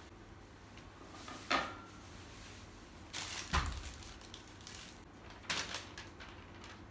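Furniture pieces being handled and set down: three short clattering knocks, one about a second and a half in, one midway with a dull thump, and one near the end.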